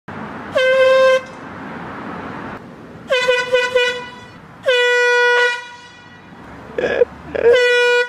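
Air horn blasting in repeated honks: a half-second blast, a quick string of short toots about three seconds in, a longer blast around five seconds, and another starting near the end.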